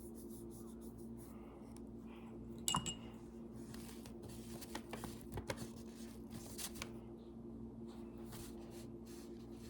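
Scattered light taps and clinks of a paintbrush against paint cups while paint is mixed, with one sharper clink about three seconds in, over a steady low hum.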